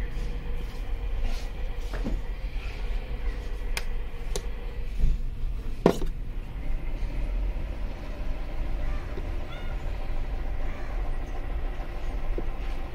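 Steady low rumble, with a few sharp clicks and knocks, the loudest about six seconds in, as the laser therapy unit's handheld probes are picked up and set down.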